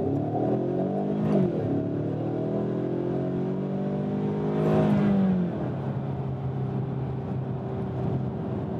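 2015 Ford Mustang EcoBoost's turbocharged four-cylinder engine under full acceleration, heard from inside the cabin during a 0-60 mph run from a dead stop without power-braking. The revs rise, dip briefly at an upshift of the six-speed automatic about a second and a half in, and climb again. About five seconds in the revs fall back and settle to a steady cruise.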